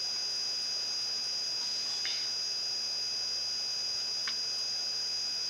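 Steady high-pitched electronic whine and hiss, the background noise of the recording setup. Two faint ticks come about two seconds in and again past four seconds.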